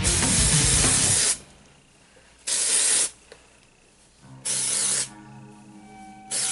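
Aerosol can of dry shampoo spraying onto hair. One long spray stops about a second in, short spurts follow about two and a half and four and a half seconds in, and another starts right at the end.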